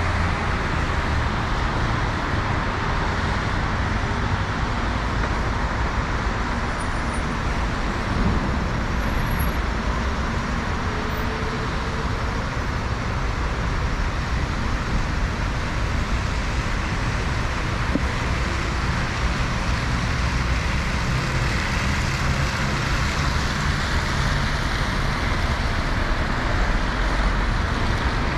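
Steady road traffic on a wet city avenue in the rain: a continuous hiss of tyres on wet road over the running of passing cars' engines.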